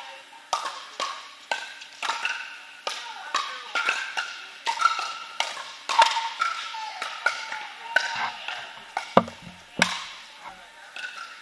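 Pickleballs being struck by paddles and bouncing on the court, a quick irregular run of sharp hollow pops echoing in a large indoor hall, with play on several courts at once. About nine and ten seconds in, two heavier thumps close by.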